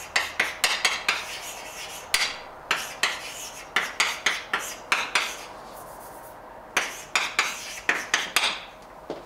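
Chalk writing on a blackboard: quick runs of sharp taps and scratches as each symbol is drawn, with a pause of about a second a little past the middle.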